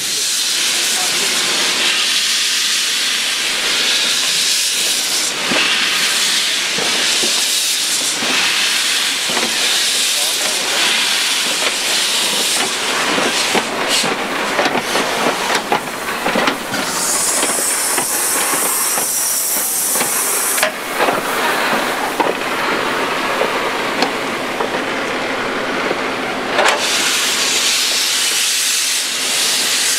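Steam hissing loudly and steadily from the former Deutsche Reichsbahn class 52 steam locomotive TCDD 56 548. A sharper, higher hiss comes in for a few seconds past the middle, with scattered clicks.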